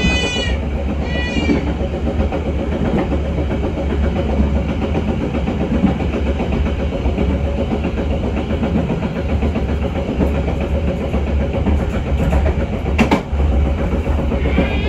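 Passenger train running along the track: a steady heavy rumble with wheel clatter over the rails, and one sharp click about 13 seconds in.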